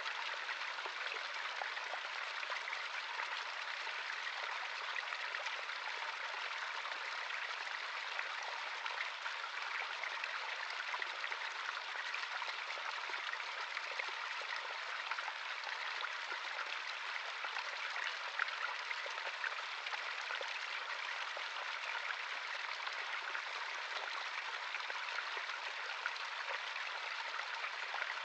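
Small stream of running water, a steady splashing and burbling over stones with many fine droplet ticks.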